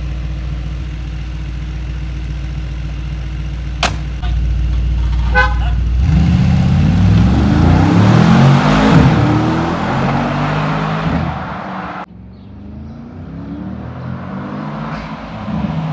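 Mercedes-AMG G63's twin-turbo V8 idling, then a door thuds shut and a short beep sounds before the engine revs hard as the SUV pulls away, its pitch climbing and dropping through the gear changes. After a sudden drop the V8 is heard again, rising as the SUV drives back.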